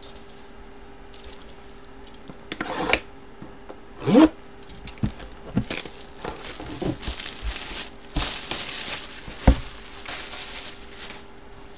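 Plastic shrink-wrap being torn and crinkled off a sealed sports-card box, in irregular bursts. A brief vocal sound comes about four seconds in, and a sharp tap late on.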